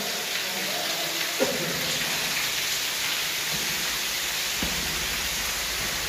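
Steady hiss of rushing water echoing in a tunnel, with a few soft low knocks from footsteps or handling.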